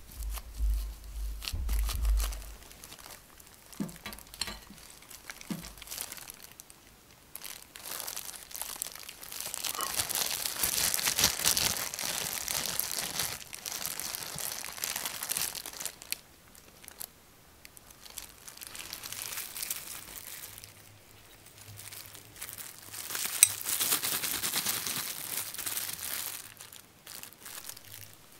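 Hands handling a sticky Oreo and cream cheese dough in a glass bowl and rolling it into balls. Low bumps in the first couple of seconds, then two longer stretches of rustling and crinkling, with scattered light clicks and taps between them.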